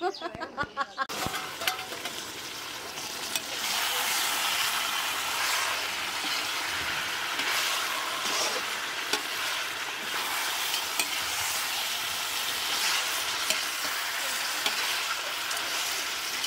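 Pork and radish curry frying in a large wok, sizzling steadily as a perforated metal ladle stirs it, with light scrapes and clicks of the ladle against the pan. The sizzle grows louder a few seconds in.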